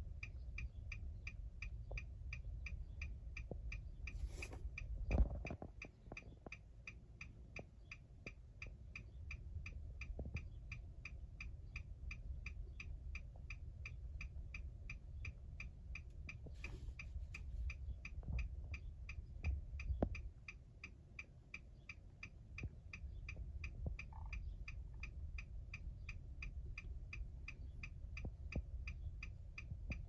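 2011 Nissan Armada's hazard-light flasher ticking at a steady, even rate while the hazards are on, with one louder thump about five seconds in.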